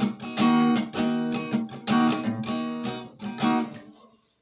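Acoustic guitar strummed in the closing bars of a song, the strums fading out and ringing to a stop near the end.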